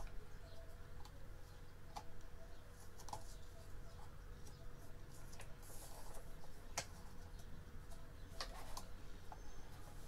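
Scattered light clicks and taps of a screwdriver and hands against a plastic desk fan's grille and housing, at irregular intervals.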